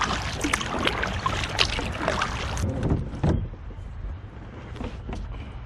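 Kayak paddle strokes in the water beside a canoe: splashing and dripping from the blades, with some wind on the microphone. The splashing eases off about two and a half seconds in, after one louder splash, and the rest is quieter.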